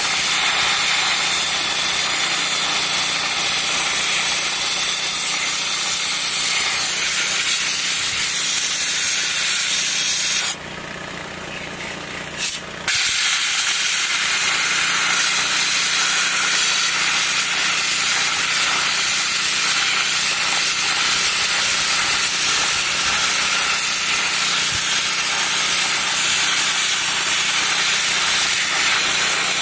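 Dry ice blaster nozzle jetting compressed air and dry ice pellets against a wire wheel rim: a loud, steady hiss. It stops for about two seconds partway through, with a short blip in the gap, then starts again.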